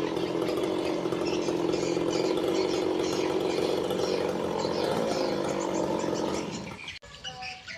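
Two-stroke chainsaw engine running steadily, then fading out about six and a half seconds in. After an abrupt cut near the end, birds chirp faintly.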